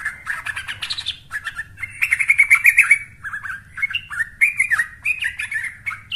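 Young yellow-vented bulbul (trucukan) singing a long, rapid, chattering song of short notes, loudest about two to three seconds in.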